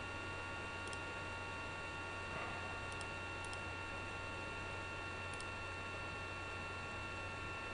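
Faint computer mouse clicks, about four, a second or two apart, over a steady electrical hum and hiss from the recording.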